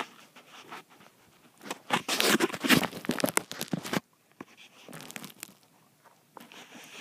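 Crackling rustle from a handheld phone being moved, with something rubbing against its microphone. It lasts about two seconds and stops suddenly, with fainter rustles before and after.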